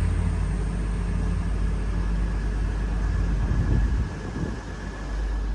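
Class 222 Meridian diesel multiple unit moving through the station, its underfloor diesel engines giving a steady low drone that drops away about four seconds in.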